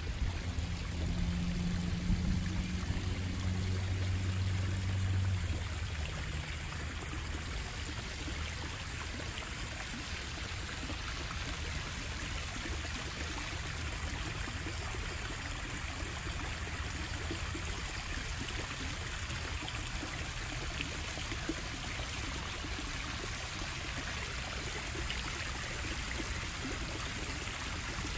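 Small rock waterfall in a backyard koi pond, splashing and trickling steadily into the pond. A low rumble sits under it for the first five seconds or so, then fades.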